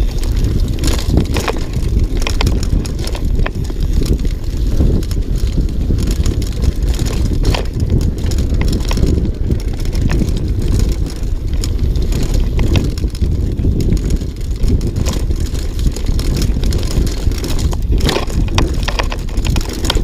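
Downhill mountain bike running fast over a rough dirt trail: a steady rumble of tyres on the ground with frequent clatters and knocks as the bike rattles over bumps, and wind buffeting the microphone.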